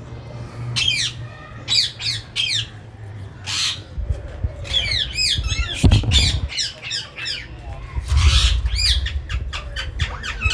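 Birds squawking in a quick series of short, sharp calls that rise and fall in pitch, with a couple of brief harsher bursts about three and a half and eight seconds in.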